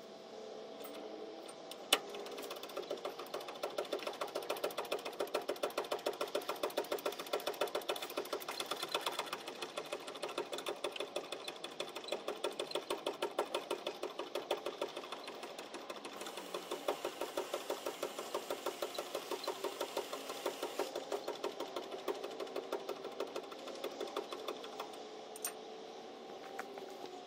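Rapid, even rhythmic clatter of the LMTV's cab-tilt hydraulic pump being worked to raise the cab. It starts about two seconds in and stops shortly before the end.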